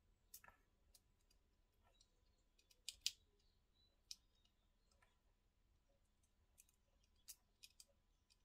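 A few faint, scattered clicks and taps as fingers press down and handle a small paper-and-plastic shaker piece on a table, the loudest pair about three seconds in.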